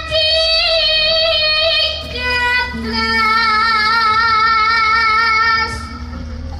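A young sinden, a Javanese female singer, sings long held notes with vibrato. There is a short break about two seconds in, then one long note held until near the end.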